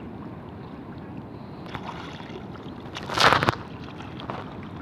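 Sea water sloshing and lapping right at the microphone of a camera held at the water surface, with one loud, brief splash about three seconds in.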